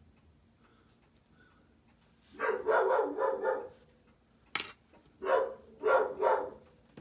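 A dog barking in a run of short barks, starting about two and a half seconds in, alerting to someone at the door.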